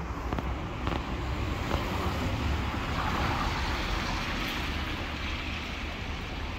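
City street ambience: a steady hiss of traffic, swelling slightly about three seconds in, with wind rumbling on the phone's microphone.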